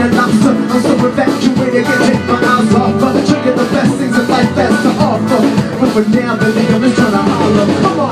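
Live band playing loud up-tempo music with a steady drumbeat, drum kit and guitar in the mix.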